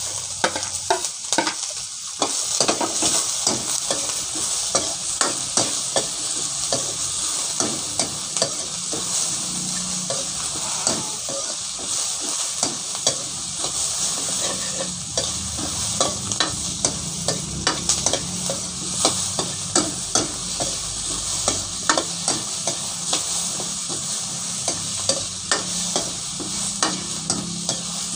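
Sliced onions sizzling in oil in a large metal wok while a metal ladle stirs them, scraping and clinking against the pan at irregular intervals.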